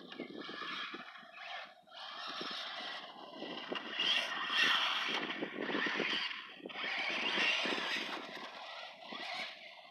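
Traxxas Slash radio-controlled short-course truck driving on a dirt track: its electric motor and tyres come in bursts of throttle, growing louder and fading as it laps, loudest near the middle and again a little later.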